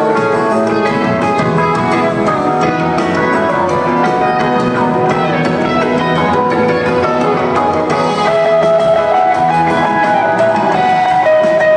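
Rock band playing live: electric and acoustic guitars over bass, keyboards and drums, a full-band jam that grows a little louder about eight seconds in.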